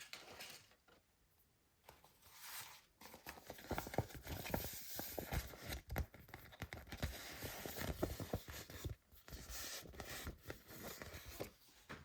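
Toy packaging being torn open and crinkled: a dense run of crackles and rustles that starts about three seconds in and stops shortly before the end.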